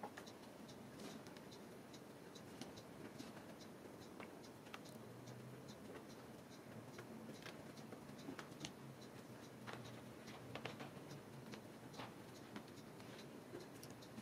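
Faint, irregular light taps and scratchy clicks, several a second at times: kittens' paws and claws knocking a clear plastic ball and scuffing the rug as they play with it.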